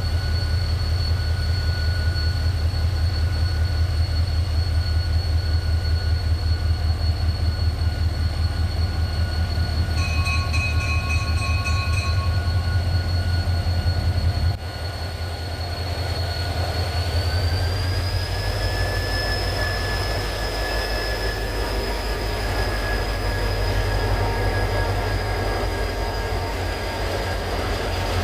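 Diesel locomotive of a Mugunghwa-ho passenger train running with a pulsing low rumble and a steady high whine. About ten seconds in, its bell rings rapidly for a couple of seconds. The engine note then changes suddenly and the whine rises in pitch as the train pulls away.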